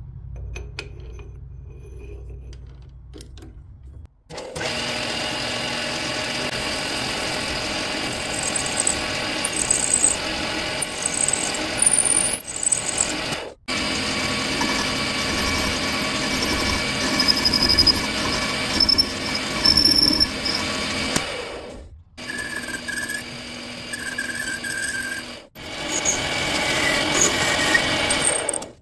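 Metal lathe running with a steady whine while a carbide-insert tool cuts a spinning wooden rod, with a hiss of cutting over the motor. It is quieter for the first four seconds, then loud, and cuts off abruptly about three times.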